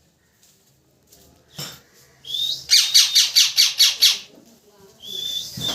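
Parrot calling: after a quiet start, a short high whistle, then a fast run of about eight sharp, loud chirps, and near the end a long steady high whistle.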